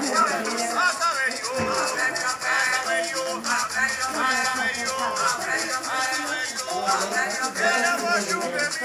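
Hand shakers rattling in a steady rhythm under many overlapping voices.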